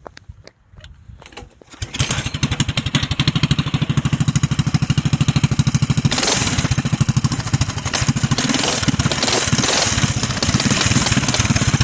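Coleman CT200U-EX minibike's single-cylinder four-stroke engine catching about two seconds in and then running, loud through a homemade open header pipe. The sound gets harsher and brighter from about six seconds in.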